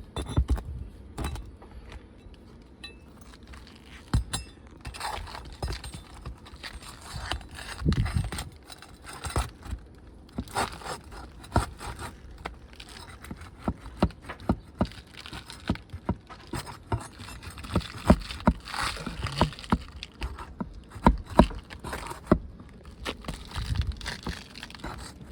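Metal pry bar scraping and clinking against 3-tab asphalt shingles and roofing nails as the shingles are pried up and the nails worked loose, with many irregular sharp taps and clicks and a few dull thumps.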